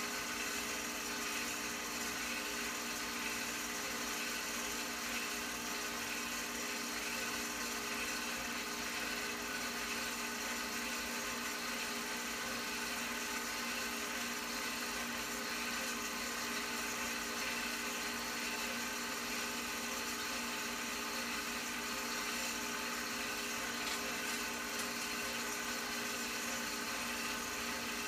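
Film projector running: a steady mechanical whir of motor and fan with several fixed humming tones.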